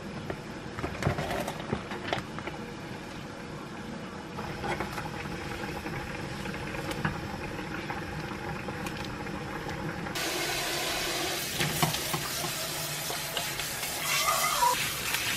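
Light knocks and rustles of bean sprouts being dropped into a pot and stirred with a wooden spoon over a steady low hiss. About ten seconds in, a kitchen tap starts running cold water over boiled noodles in a metal strainer in a steel sink.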